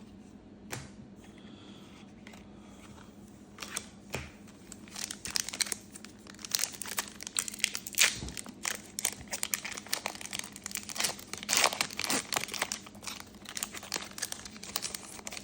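Trading-card pack wrapper crinkling and tearing as a fresh pack is opened. It comes as a dense run of crackles starting about four seconds in, after a few quiet seconds.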